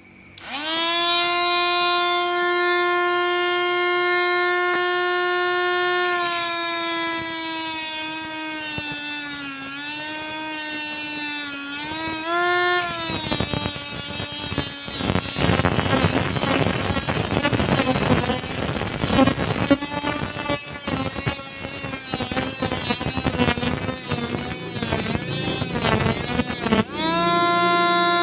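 A homemade mini grinder built from an RS380 DC motor on a single 3.7 V lithium cell starts up and spins a small metal-cutting disc with a steady high whine, the pitch wavering as the disc touches the work. About thirteen seconds in, the disc bites into a small steel plate with a harsh grinding rasp that lasts most of the rest, and the free-running whine returns near the end as the disc lifts off.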